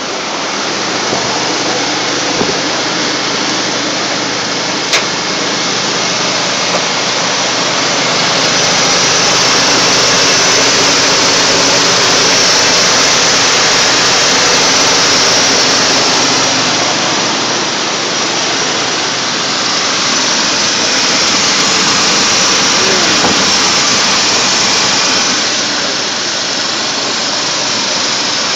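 Old Chevy truck's engine running steadily, with a loud hiss over a low, even hum; it grows louder about eight seconds in and eases back around eighteen seconds.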